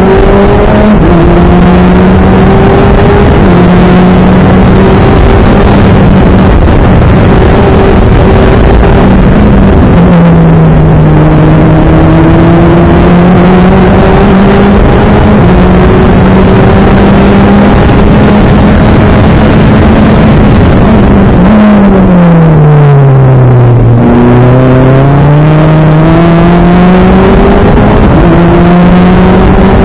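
Super FJ formula car's Honda 1.5-litre four-cylinder engine running loud under load, heard from the cockpit with a heavy rush of wind and road noise. Its pitch climbs slowly with small steps at gear changes; about 22 seconds in it falls steadily for a couple of seconds as the car brakes and downshifts, then climbs again on acceleration.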